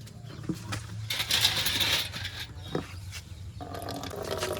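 Heavy machinery's engine running steadily low, with metallic clinking and a burst of rattling about a second in.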